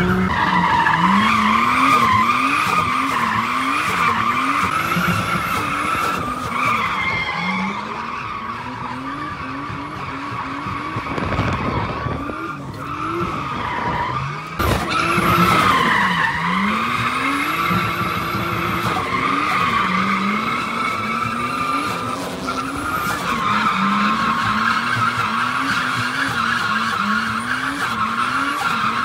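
A drift car sliding with its tyres squealing steadily, while the engine revs climb and fall again and again as the throttle is worked. The squeal eases briefly a little before halfway, then picks up again.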